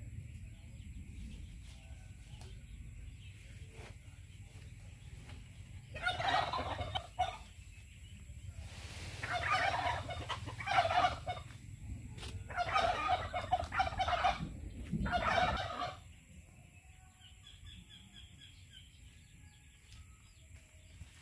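Domestic fowl calling: four loud calls, each one to two and a half seconds long, come over about ten seconds in the middle of the stretch, with quieter background before and after.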